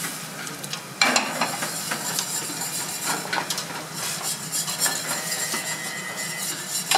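Chicken stock poured into a large metal pot of bolognese sauce, with a spatula stirring and scraping against the pot and the sauce sizzling; the sound grows suddenly louder about a second in.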